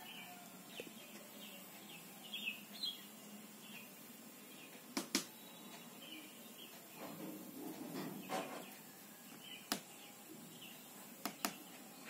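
Rose-ringed parakeet giving a few soft chirps in the first few seconds, then sharp clicks of its beak and claws on the wooden bed headboard, with a brief rustle between them.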